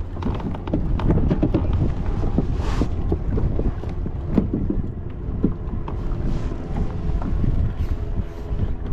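Wind buffeting the microphone, a steady low rumble, with scattered small knocks and clicks on the kayak and a brief hiss about three seconds in.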